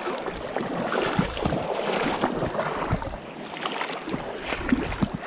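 Legs wading through shallow river water, a continuous uneven splashing and sloshing as the water pushes around them.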